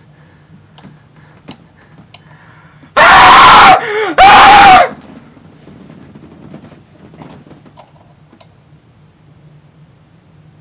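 A person screaming twice in a row, about three seconds in, each scream lasting under a second, so loud it distorts. A few sharp clicks come before the screams and one more near the end.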